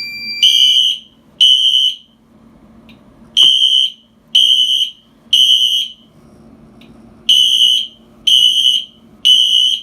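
Fire alarm sounding the temporal-three evacuation pattern: high-pitched half-second beeps in groups of three, about one a second, with a pause between groups.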